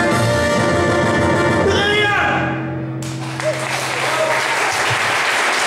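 The song's orchestral accompaniment ends on a long held final chord, and audience applause breaks out about three seconds in and keeps going.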